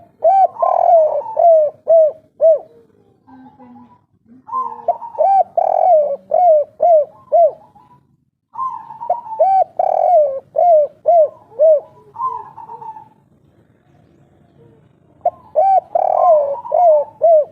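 Spotted dove (tekukur) singing its 'kuk 3' type song: four phrases of repeated cooing notes with short gaps between them, the last phrase cut off at the end.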